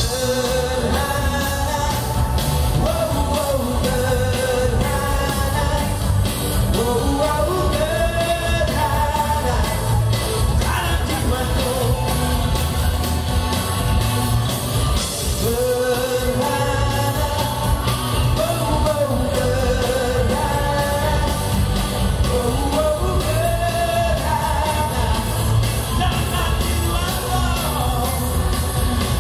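Male singer performing a song live into a handheld microphone over a rock band with guitar and drums, amplified through the stage sound system. His melody comes in phrases that rise and fall over the steady band.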